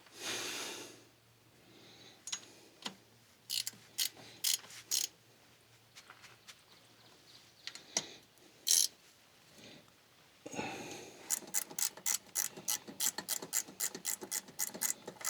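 Hand ratchet wrench clicking while bolts are run in: a few scattered clicks and knocks at first, then from about ten seconds in a fast, steady run of ratchet clicks, about five a second.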